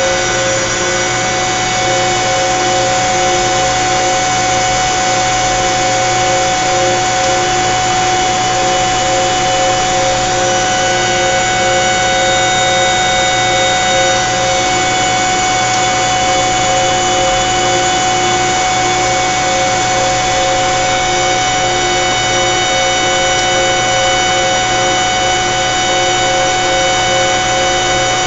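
Carrier 30HX chiller's screw compressors running after a service: a steady mechanical whine of several held tones over a constant hum, two of the lower tones fluttering.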